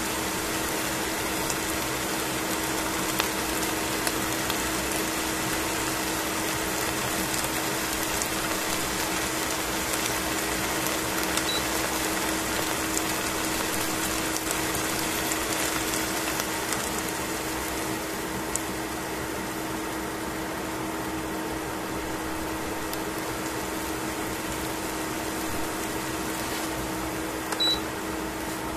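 Chicken pieces and onions sizzling in oil in a stainless steel frying pan: a steady hiss with scattered small pops, over a constant low hum. A brief louder blip comes near the end.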